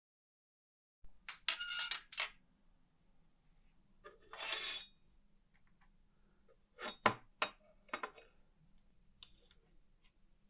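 Small metal typewriter parts clinking and tapping as they are handled, some with a brief metallic ring, with a short scraping rustle in the middle.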